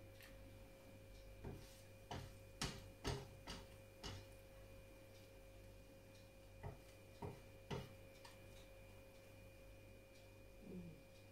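Wooden spatula knocking and scraping against a non-stick frying pan while cooked egg is pushed and folded: a run of light knocks in the first four seconds, then three more around seven seconds, over a faint steady hum.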